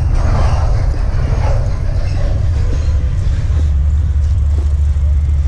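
Wind buffeting a moving bicycle-mounted microphone as a steady low rumble, over street traffic noise.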